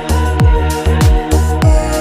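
Electronic background music with a steady beat: a kick drum with a falling bass sweep about twice a second under sustained synth tones.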